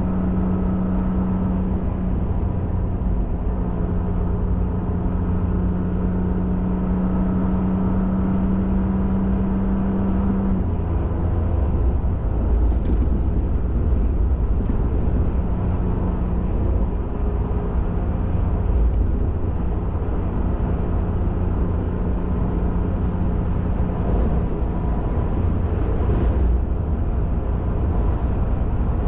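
Ford F-150 Raptor pickup driving at steady speed, its engine drone and tyre and road noise heard from inside the cab. The engine's pitch dips slightly about ten seconds in and returns a few seconds later.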